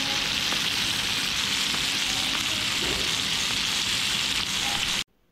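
Masala-coated pearl spot fish shallow-frying in oil on a flat pan, a steady sizzle that cuts off suddenly about five seconds in.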